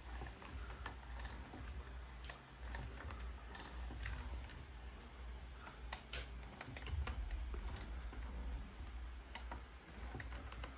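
Light, irregular clicking from a homemade engine's 3D-printed overhead-cam valvetrain and timing chain as it is turned over, with no piston or connecting rod fitted yet.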